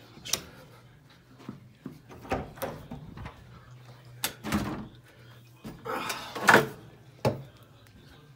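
A series of knocks and clatters as a door is opened and a broom and plastic dustpan are taken out and handled. The loudest is a longer rattling clatter about two-thirds of the way through, with a sharp knock shortly after.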